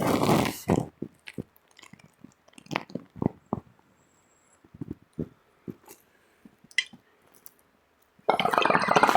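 A short rush of noise, then scattered clicks and knocks of a glass bong and bowl being handled; about eight seconds in, the water in the bong starts bubbling loudly and steadily as smoke is drawn through it.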